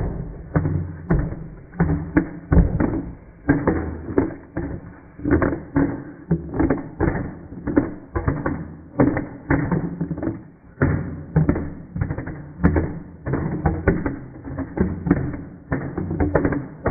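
A tin of paint shaken by hand, slowed to one-eighth speed: each slosh and knock of the tin comes out as a deep, drawn-out thud, about two a second.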